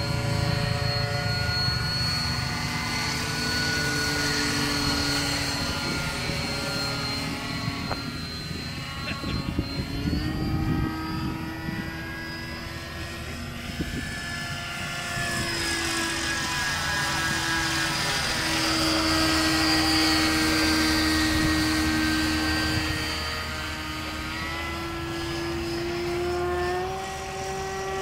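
Gyrocopter flying overhead with a steady engine-and-propeller drone. Its pitch steps up about ten seconds in and again near the end, and it is loudest a little past the middle.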